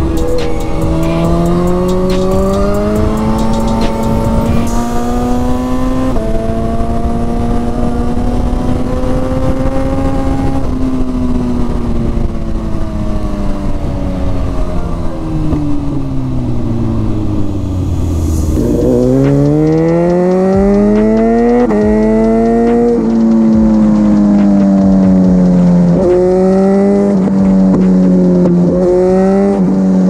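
Suzuki GSX-R1000 K8's inline-four through a decat Cobra dual exhaust, pulling through the gears with quickshifter upshifts, each a sudden drop in pitch. About halfway the revs fall away slowly as the throttle eases off. Then it accelerates hard again through two quick upshifts and settles into a steady cruise.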